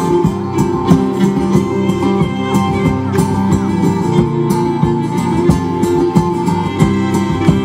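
Live acoustic folk band playing an instrumental introduction: steady strummed strings under a sustained melody line.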